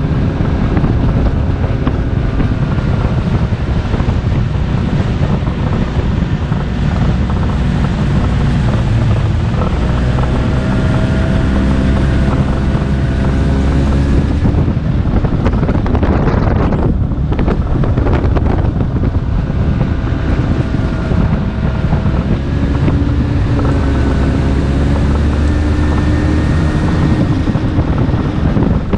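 An engine running steadily under heavy wind noise on the microphone, its pitch stepping up and down a few times.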